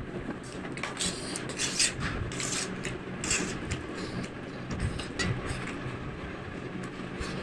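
Spicy instant noodles being eaten close to the microphone: a run of short, repeated slurps and mouth noises over a steady low hum.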